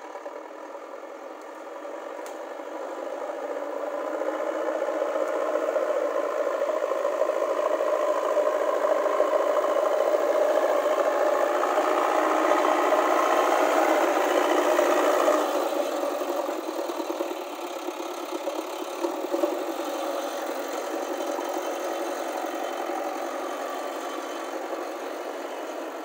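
JCB backhoe loader's diesel engine running as the machine drives forward and pushes soil with its front loader bucket. The engine sound builds over the first few seconds, stays loud until just past halfway, then eases to a lower steady level.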